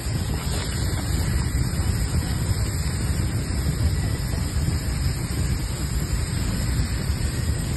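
Outdoor wood bonfire burning, heard mostly as a steady rush of wind buffeting the microphone, with only faint crackles.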